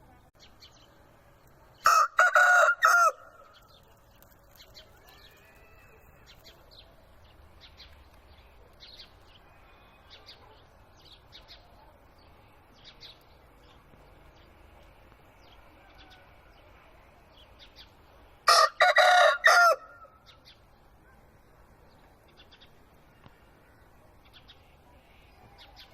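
A rooster crowing twice, two short, loud crows about sixteen seconds apart. Faint chirps of small birds come in between.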